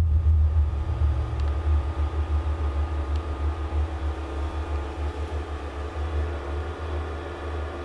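Amplified output of a sound installation: a low, rapidly fluttering rumble with steady hum tones above it, switching on abruptly and dropping away shortly before the end. It is the piezo contact-microphone pickup of metal wires, played through a speaker.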